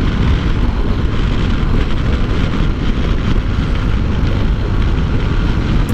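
Steady wind rush over the microphone with motorcycle road noise underneath, from a Honda CB 300 cruising at highway speed, about 70 to 80 km/h.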